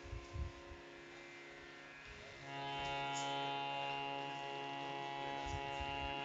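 Harmonium sounding a sustained chord, swelling louder about two and a half seconds in over a faint steady drone, with a couple of soft low thumps near the start.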